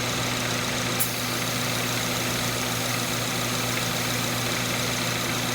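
2014 Hyundai Accent's four-cylinder engine idling steadily, with a short click about a second in.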